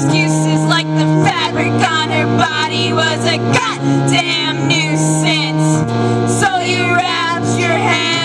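A live band song with electric guitar and keyboard under a female voice singing. Sustained low notes change every second or two.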